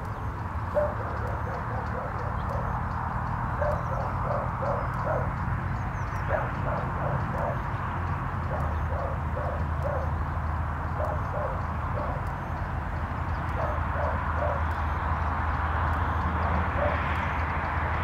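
A dog barking in the distance, short barks in quick runs of three or four, repeated throughout. Under it a steady low rumble, and a wash of noise swells near the end.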